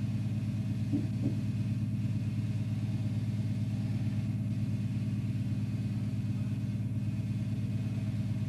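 Tractor engine idling steadily with a low, even drone.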